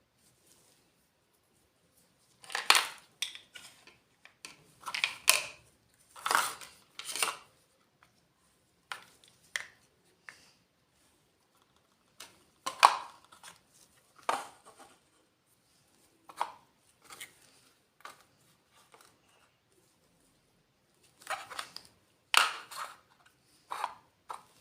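Small hard toy pieces clicking and tapping as they are handled, in irregular bursts of a few knocks with silence between.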